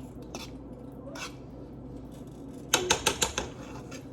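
A quick, irregular run of sharp clicks and clinks from kitchen utensils, about six in under a second, starting a little over halfway through after a stretch of faint low background noise.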